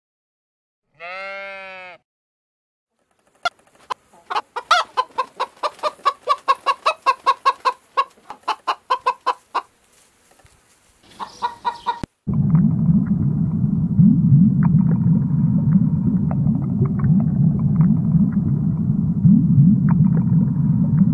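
Chicken sounds: a hen clucking in a fast run of short notes for several seconds, after a single short call about a second in. About halfway through, this gives way to a dense, low, steady noise with small clicks that lasts to the end.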